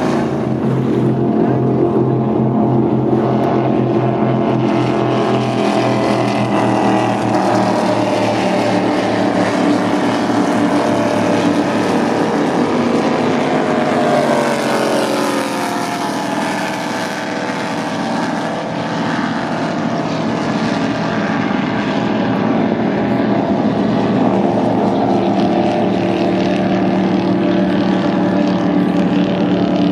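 Powerboat engines running steadily at speed. About halfway through, a racing powerboat passes close by, its engine note falling in pitch as it goes.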